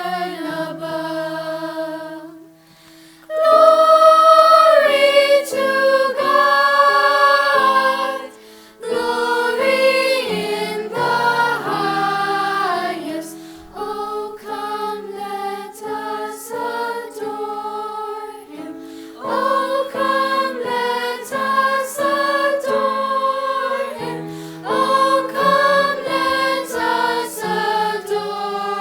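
A choir singing, several voices together in held, changing notes, with brief breaks about three seconds in and again near nine seconds.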